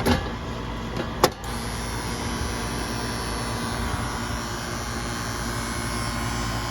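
A sharp click just over a second in, then a steady electrical buzz from a three-phase condensing unit's contactor buzzing as soon as power is applied. The technician judges the contactor burnt up.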